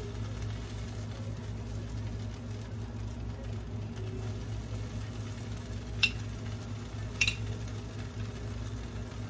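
Bread frying in a buttered pan, a faint steady sizzle over a low hum. About six and seven seconds in come two sharp clicks of a metal spoon and a glass jar of marinara sauce being handled and opened.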